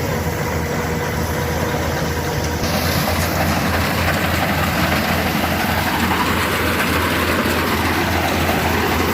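Engine of a rice combine harvester running steadily, a low rumble with a fast, even pulse under a broad mechanical noise.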